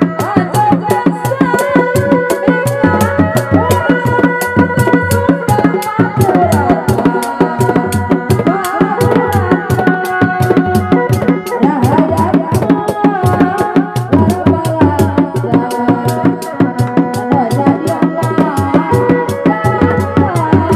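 Sundanese reak ensemble playing: dogdog drums beaten in a fast, steady rhythm under a sustained, wavering melody line.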